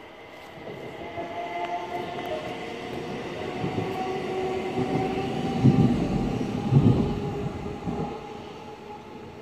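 Zentralbahn electric train passing through, growing louder and then fading, with a steady whine and two heavy knocks near the middle.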